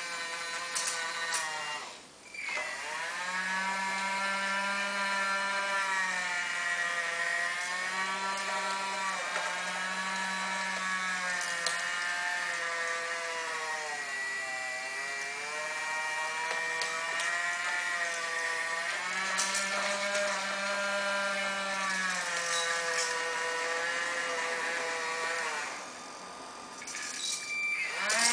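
RC model excavator's motor and gearing whining as the upper body spins round, the pitch sagging and rising again as the motor slows and speeds up. It nearly stops about two seconds in and again near the end, and a lower hum cuts in and out several times.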